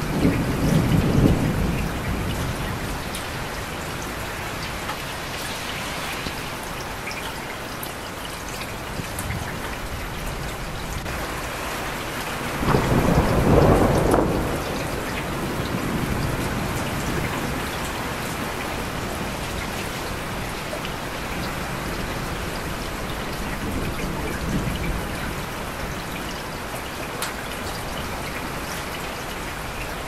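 Steady heavy rain falling, with a low roll of thunder right at the start and another about thirteen seconds in.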